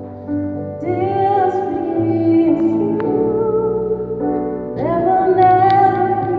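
A female solo voice sings a slow gospel song through a microphone over held keyboard chords. One sung phrase begins about a second in and another about five seconds in.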